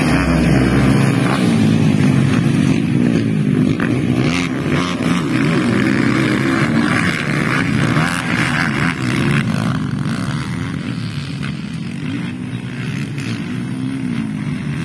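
Several motocross dirt bikes accelerating hard along a dirt track, their engines revving and changing pitch as the riders shift and throttle, growing fainter toward the end as the bikes draw away.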